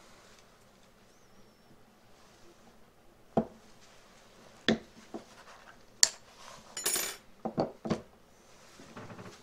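Hard objects being handled and set down on a workbench: a scattered run of about eight sharp clinks and knocks starting a few seconds in, one of them with a brief high metallic ring.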